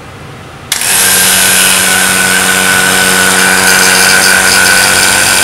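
Vacuum pump switching on abruptly about a second in and running steadily with a hum and hiss, pulling the air out of a glass jar that holds bubble wrap.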